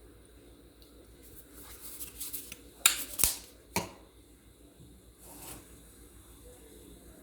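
Kitchen food-prep handling noises: a few short scrapes and sharp knocks, the loudest a quick cluster about three seconds in and another a second later, with quiet between.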